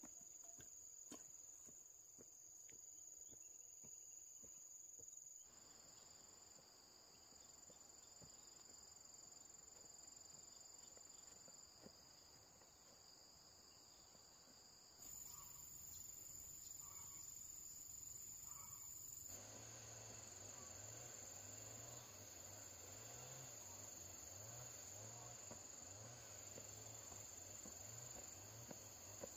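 Faint, steady high-pitched trilling of insects in an outdoor chorus, with the background shifting abruptly a few times.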